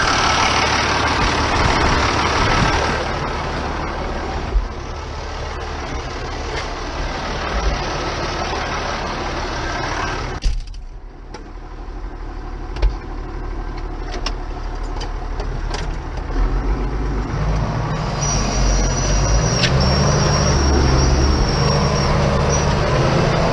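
Ford TW-25 tractor's six-cylinder diesel engine working steadily under load while pulling disc harrows, with a few sharp knocks. The engine sound drops briefly about halfway through, then builds again and rises in pitch near the end.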